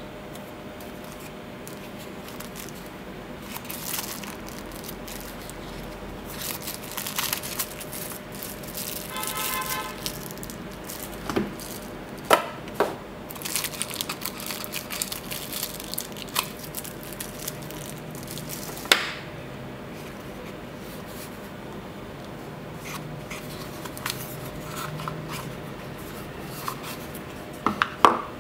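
Clear plastic wrapping crinkling and rustling as it is worked off a wood-and-steel wristwatch in its box, with a brief squeak about ten seconds in. Several sharp clicks and knocks from handling the watch and its wooden box stand out, the loudest near the end as the watch is lifted out.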